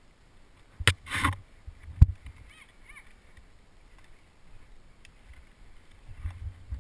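Two sharp clicks about a second apart, the second the louder, with a brief rustle just after the first, over low thuds of movement close to the microphone.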